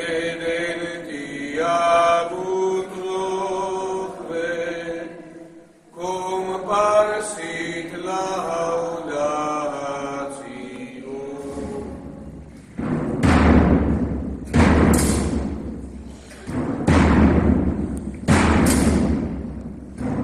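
A priest chants a liturgical melody alone, in a church with a long echo. About halfway through, the chant gives way to slow, steady drum beats, roughly one every one and a half to two seconds, each ringing on in the echo.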